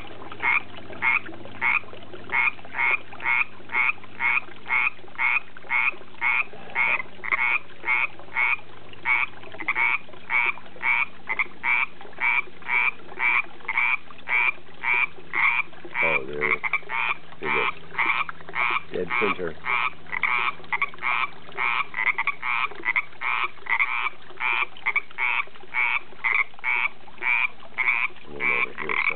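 A frog calling in a steady, evenly spaced series of short calls, about two a second, with no break.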